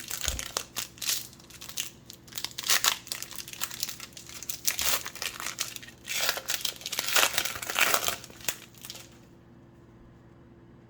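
A wrapper on a pack of Upper Deck 2020-21 Marvel Annual trading cards being torn open and crinkled by hand, in rapid irregular bursts. The crinkling stops about nine seconds in, leaving only a faint steady hum.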